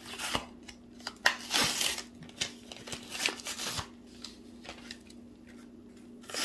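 Handling noise from a Hot Wheels die-cast car in its blister-card packaging: irregular plastic and cardboard rustles and sharp clicks, busiest between about one and two seconds in.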